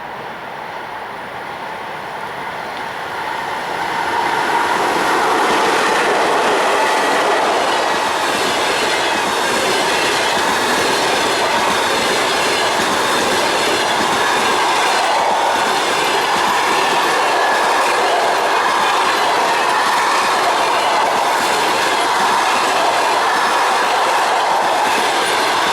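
Passenger train hauled by a ChS7 electric locomotive passing close at speed, its wheels clattering over the rail joints with a faint squeal. It grows louder over the first four seconds, then holds steady as the coaches go by.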